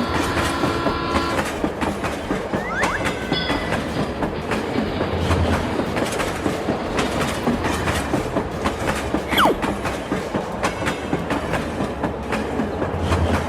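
Train running on rails, its wheels clattering in a rapid clickety-clack, with a couple of short high gliding squeals.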